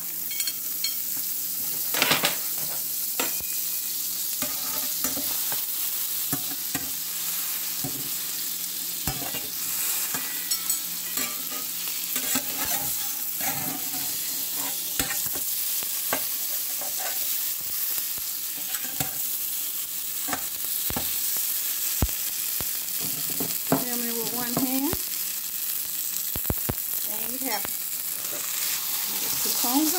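Butter sizzling steadily in a stainless steel skillet as a tuna melt sandwich fries, with frequent short clicks and pops over the hiss.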